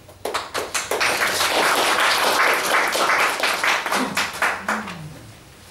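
Audience applauding: the claps start within the first half second, fill in quickly, and die away about half a second before the end.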